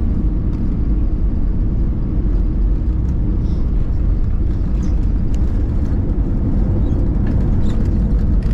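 Steady low rumble of a moving vehicle, heard from inside it, with a few faint ticks.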